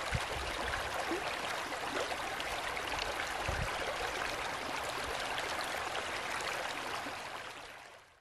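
A shallow rocky creek rushing and splashing over stones in a steady wash of water noise, with a couple of brief low bumps; it fades out near the end.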